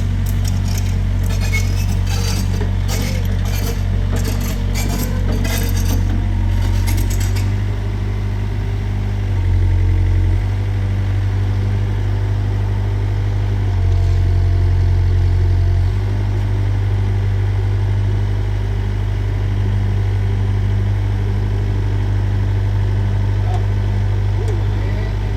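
Mini excavator's engine running steadily, its note growing louder and heavier a few times as the hydraulics take load. For the first seven seconds or so, the bucket scrapes and clatters through soil and old foundation debris with a dense run of sharp clinks.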